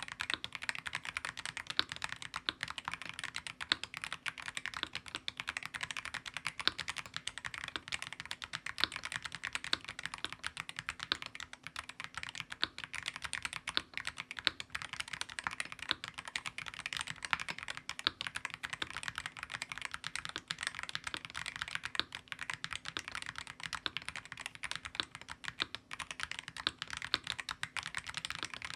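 Continuous typing on a DAREU EK106 RT 8K full-size magnetic-switch keyboard, a steady stream of key strikes from its factory-lubricated linear Sky magnetic switches on a steel plate. A faint steady hum sits underneath.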